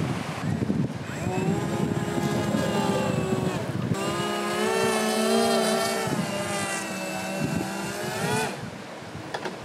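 RC hydrofoil boat's battery-powered motors driving air propellers, giving a steady whine. It spins up about a second in and winds down near the end.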